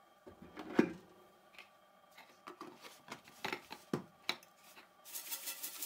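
Knocks and clicks of a tin can being handled and closed, the loudest just under a second in. About a second before the end, rapid even rattling starts, about six shakes a second: plastic granulate ground from failed 3D prints being shaken through a sealed sieve made from a snack tin.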